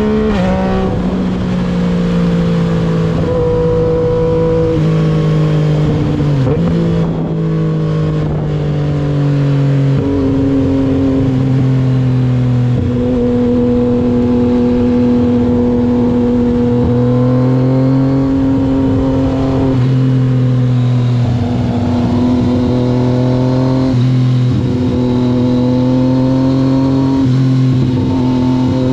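Yamaha MT-09's inline three-cylinder engine running under way at fairly steady revs. The note sags at the start, then shifts up and down in a few sudden small steps.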